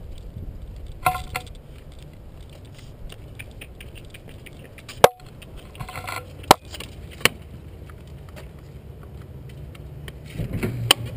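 Rustle and rumble from a body-worn camera being carried while walking, with scattered rustles and three sharp clicks about halfway through.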